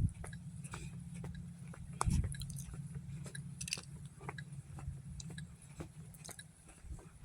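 Snow crunching and crackling in scattered irregular clicks, with a louder crunch about two seconds in, over a steady low wind rumble on the microphone.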